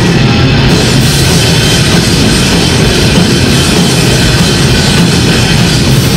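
Grindcore band playing live at full volume: distorted guitars and bass over fast, dense drumming, without a break.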